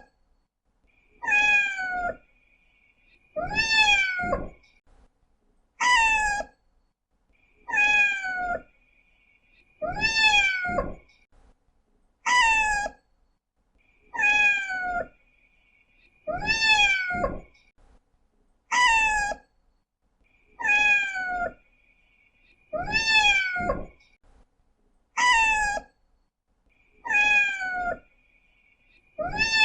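Domestic cat meowing over and over, one meow about every two seconds, each under a second long and falling in pitch at the end.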